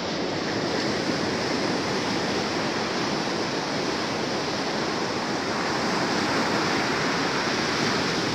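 Ocean surf breaking and washing up a sandy beach, a steady rushing with gentle swells in loudness.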